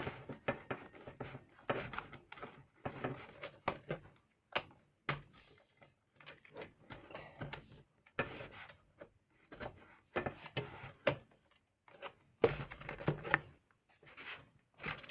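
Plastic and cardboard toy packaging being handled and torn open, with irregular crinkling, clicks and taps in short clusters.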